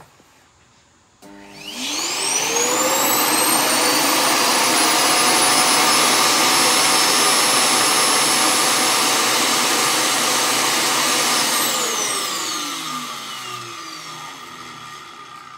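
A Roomba Clean Base auto-empty dock's suction motor spins up with a rising whine, runs loud and steady for about ten seconds emptying the S9's bin, then winds down with a falling whine near the end.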